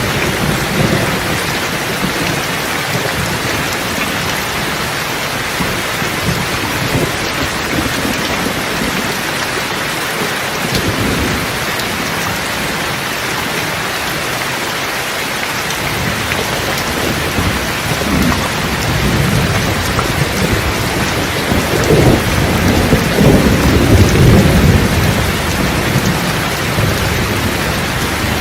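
Steady rain with thunder rumbling; the low rumbles swell through the second half and are loudest about three-quarters of the way through.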